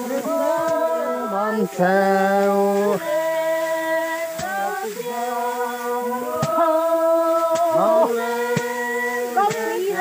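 A group of voices chanting together in long, held notes that change pitch about once a second, with a few sharp knocks among them.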